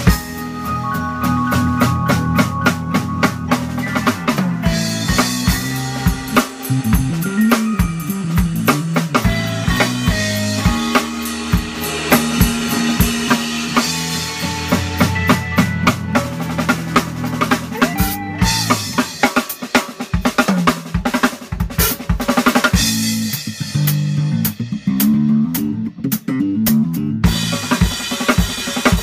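Live band playing an instrumental: a Pearl acoustic drum kit with snare, bass drum and cymbals drives the beat under held low guitar notes and digital piano chords. About two-thirds of the way through, the drums carry on nearly alone for a few seconds before the other instruments come back in.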